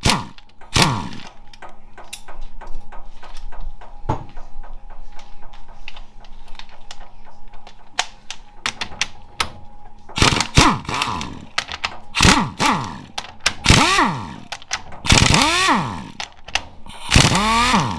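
Hand and power tools working on a 4L65E automatic transmission during teardown. For the first half there is rapid clicking like a ratchet. From about ten seconds in, a power tool runs in short bursts about a second apart, each rising and falling in pitch, as fasteners are run out.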